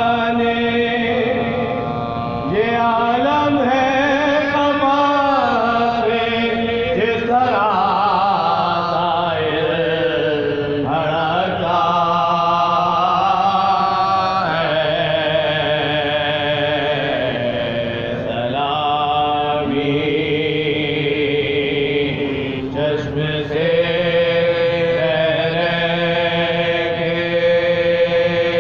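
Soz-khwani: a voice chanting a marsiya, an Urdu elegy, in a slow, wavering melodic line of long held notes.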